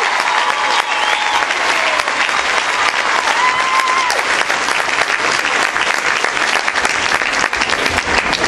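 Theatre audience applauding steadily, with a few cheering shouts in the first seconds.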